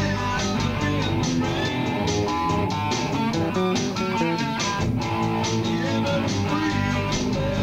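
Instrumental music: plucked guitar notes over a bass line, with a steady stream of picked notes.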